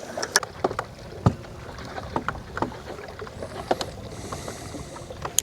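Irregular light clicks and knocks from handling fishing gear in a boat, with a brief hiss about four seconds in.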